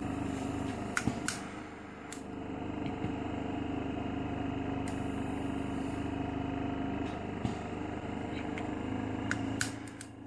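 Respironics EverGo portable oxygen concentrator's compressor running with a steady hum that dips and swells slowly, with a few short sharp clicks about a second in and again near the end.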